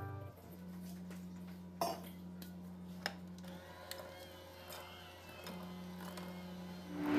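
Electric hand mixer running with a faint, steady hum as its beaters work flour into ube cream cheese batter. Two light knocks come about two and three seconds in.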